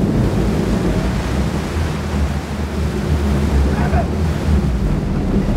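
Sportfishing boat under way: steady engine rumble under the rushing wash of the wake churning behind the stern.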